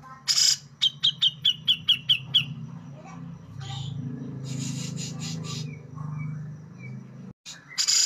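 Grey-cheeked bulbul (cucak jenggot) singing: a loud harsh note, then a quick run of about eight sharp high notes. A longer harsh phrase follows about halfway through, and another loud harsh note comes near the end.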